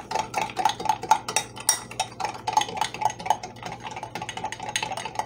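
Metal spoon stirring in a glass mug, clinking against the glass about four times a second, as cocoa powder is mixed into warm half-and-half.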